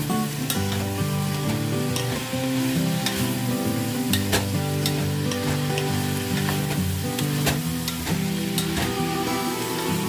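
Chopped meat sizzling as it is sautéed in a stainless steel pot, with a wooden spoon stirring and scraping, knocking against the pot now and then. Light background music plays underneath.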